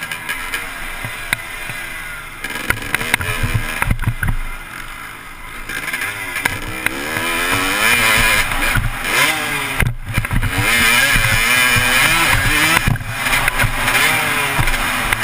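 Motocross dirt bike engine heard from a helmet-mounted camera, revving up and down through the gears. It eases off a few seconds in, then climbs again in repeated rising revs and runs loudest through the second half, with a brief break in the sound about two-thirds of the way through.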